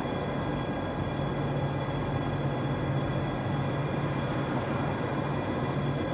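Steady outdoor background noise, a low hum under an even hiss, unchanging throughout.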